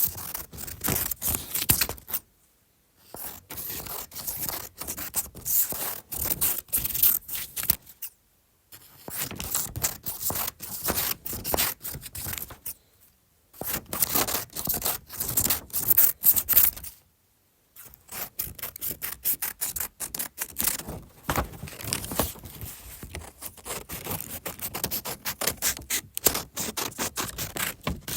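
Scissors cutting through paper: runs of quick, crisp snips, several a second, each run broken off by a brief pause before the cutting starts again.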